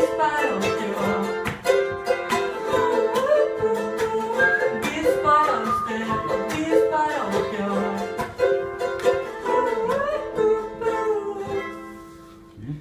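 Live acoustic song: a strummed acoustic string instrument with a wordless melody over it, fading out on a last chord near the end.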